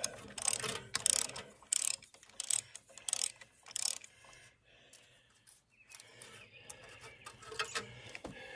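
Socket ratchet clicking in quick runs as a shroud bolt in the Wisconsin engine's cast iron is backed out, coming loose easily. The clicking stops about four seconds in, and fainter scattered clicks follow near the end.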